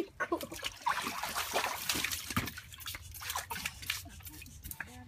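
Shallow water in an inflatable paddling pool splashing and trickling as a toddler swishes and pats it with his hands, in small irregular splashes. Busier for the first couple of seconds, then softer.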